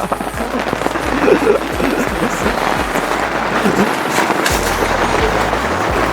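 Background pop music over a dense crackling, popping noise.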